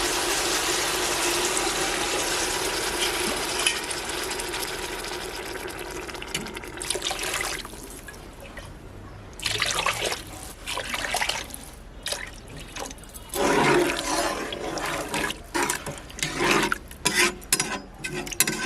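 Water poured from a tumbler into a pressure cooker of sautéed mushrooms, peas and vegetables: one long steady pour for about seven seconds, then shorter broken pours and splashes.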